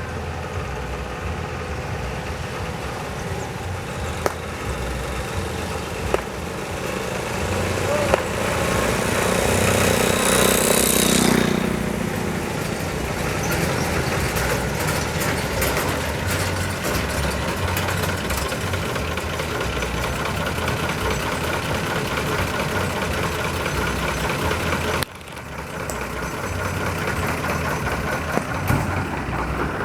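Roadside ambience with people's voices and a motor engine running steadily, swelling louder as a vehicle passes about ten seconds in; the sound drops suddenly about 25 seconds in.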